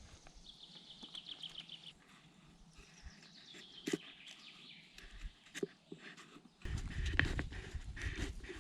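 A small bird sings fast high trills, one falling in pitch, with a few sharp knocks. About two-thirds in, a louder spell of close crunching and rustling with many clicks and knocks begins.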